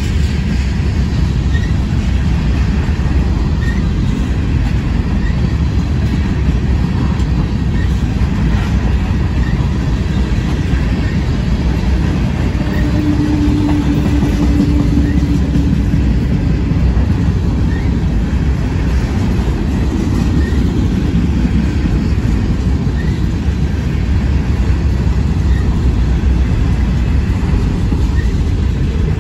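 Freight train of tank cars and covered hopper cars rolling past close by: a loud, steady rumble of steel wheels on rail, with a faint click repeating every couple of seconds. A short low whine rises out of it about halfway through.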